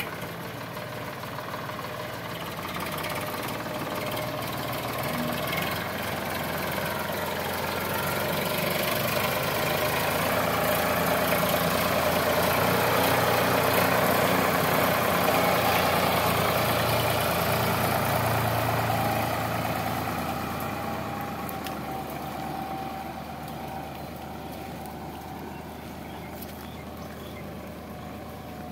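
Sonalika DI 745 III tractor's three-cylinder diesel engine running steadily while it pulls a heavily loaded trolley. It grows louder toward the middle as the tractor comes close, then fades as it pulls away.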